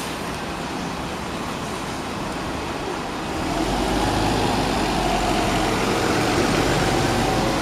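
Steady hiss of heavy rain, then about three seconds in a diesel bus engine comes in close, its low rumble growing louder and holding steady as the bus pulls in.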